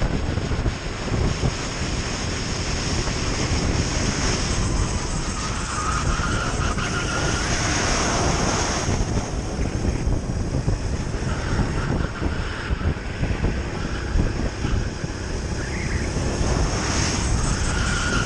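Sodi RT8 hire kart's single-cylinder four-stroke engine running under race load, heard onboard, with heavy wind buffeting on the microphone.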